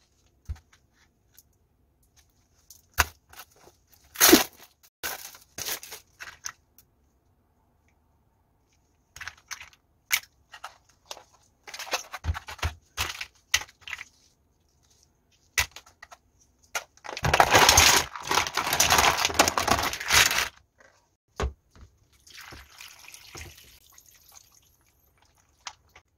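Hands handling packaged fresh mussels: the plastic tray and its film crinkling and tearing, and mussel shells clicking against each other. Midway there are about three seconds of loud, steady rushing noise, and a fainter hiss follows.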